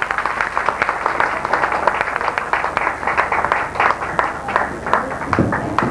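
Audience applauding, many separate hand claps running together steadily.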